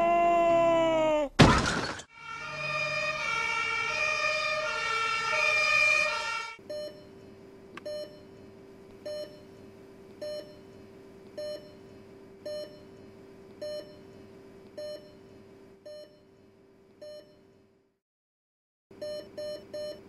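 Cartoon sound effects. A tune bends down in pitch and is cut by a loud crash about a second and a half in, followed by an ambulance siren for about four seconds. Then a hospital heart monitor beeps about once a second over a steady tone, goes silent for about a second, and returns beeping faster near the end, signalling a heart attack.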